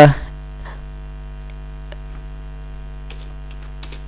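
Steady electrical mains hum, with a few faint clicks of keyboard typing.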